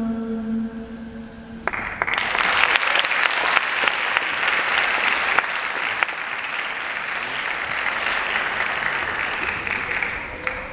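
The music's final held note fading out, then audience applause breaking out about two seconds in and going on steadily to the end.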